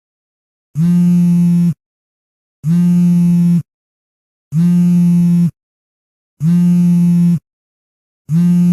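Cell phone on vibrate buzzing in a steady pattern: one-second buzzes with a low hum, separated by about a second of silence, four full buzzes with a fifth starting near the end, the pattern of an incoming call on silent mode.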